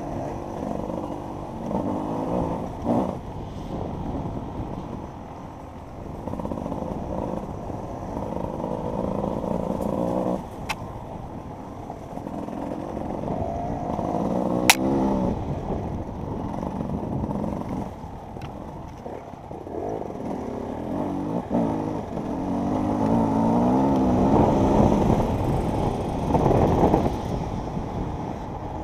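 Enduro motorcycle engine revving up and down over and over as the throttle is worked on an off-road course, sounding muffled. Two sharp knocks cut through it, the louder one about fifteen seconds in.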